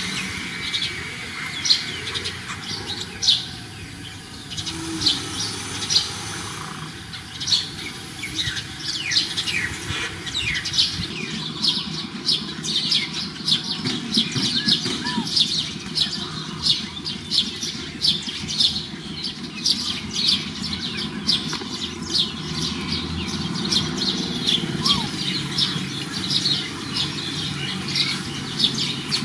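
Small birds chirping all around in many short, quick, falling chirps, several a second, growing busier about ten seconds in, over a low steady background rumble.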